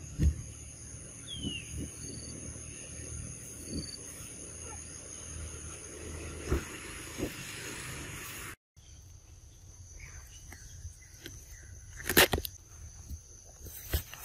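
Forest ambience: a steady high-pitched insect drone with a few short bird chirps and scattered knocks and thumps. The sound drops out briefly a little past halfway, and a loud sharp crack comes near the end.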